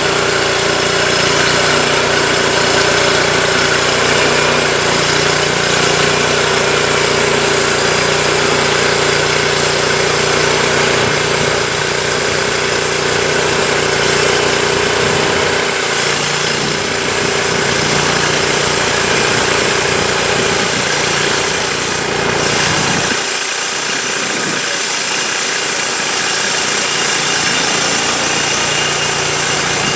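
Engine of a Vallee 'Big Red' portable sawmill running steadily. The deep part of the sound drops away briefly about three quarters of the way through, then returns.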